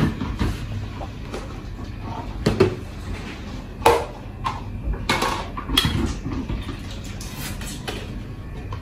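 Plastic containers and bowls being picked up and set down in a stainless steel sink, making irregular knocks and clatters about a second apart.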